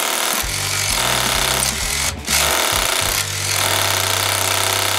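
Cordless hammer drill boring into a brick wall, the hammer action running hard with a brief break about two seconds in.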